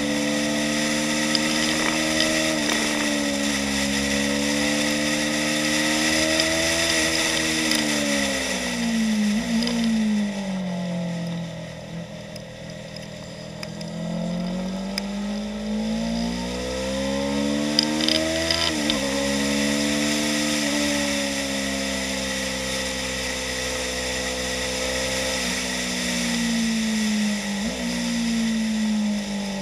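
2015 Yamaha YZF-R3's 321 cc parallel-twin engine running hard, heard from the bike's onboard camera. The pitch drops and the sound quietens as the bike slows for a corner about ten seconds in. It then climbs again, with abrupt steps at the gear changes, and holds high revs to the end.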